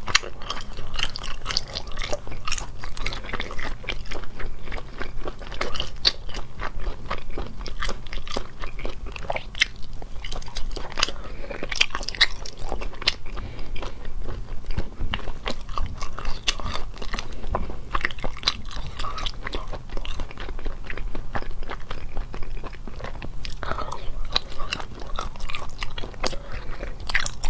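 Close-miked eating: continuous biting and chewing, full of small crunches and mouth clicks.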